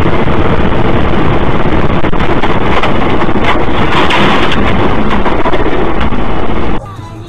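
Loud, steady rush of wind and road noise on a moving car's dashcam microphone, with a few short knocks. It cuts off suddenly near the end.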